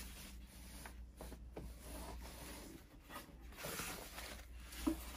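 Soft rustling and rubbing of a white protective wrap sheet being pulled off a telescope tube, with a brief light knock near the end.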